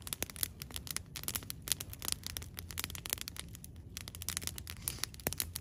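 Campfire crackling, with many quick, irregular pops and snaps from the burning wood.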